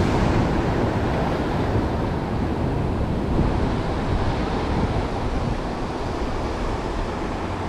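Ocean surf breaking and washing over the boulders of a rock jetty, a steady rush of white water that slowly dies down.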